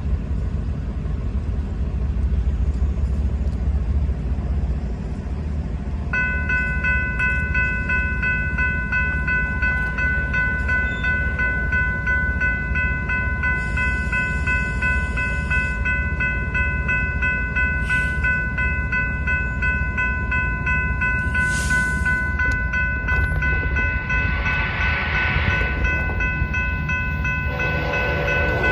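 Railroad crossing warning bell starts ringing about six seconds in and keeps ringing steadily, signalling an approaching train. Near the end an oncoming train's horn sounds, over a steady low rumble.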